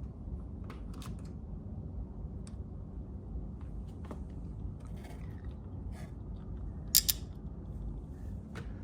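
Metal door-lock hardware being handled, with scattered light clicks and taps and two sharp metallic clicks in quick succession about seven seconds in.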